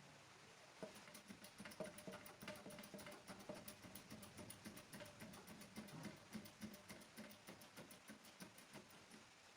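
Faint background music with a quick, even ticking beat and a plucked-string sound. It starts about a second in and stops shortly before the end.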